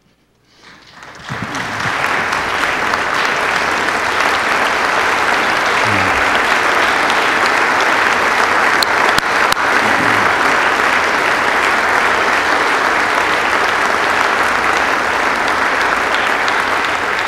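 A roomful of people applauding, building up about a second in, holding steady, and dying away near the end.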